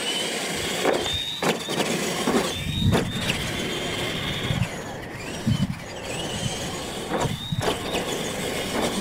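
Two RC monster trucks racing on dirt, their electric motors and gearboxes whining up in pitch as they accelerate, several times over, with occasional knocks from the trucks over the track.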